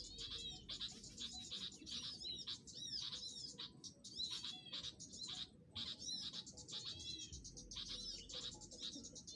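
Small songbirds chirping: rapid runs of short, high, arched chirps, broken by brief pauses about four and five and a half seconds in.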